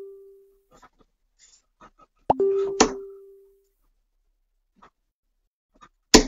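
Darts hitting a dartboard. About two and a half seconds in there is a thud followed by a short ringing tone and a second knock half a second later, and near the end there is one sharp hit.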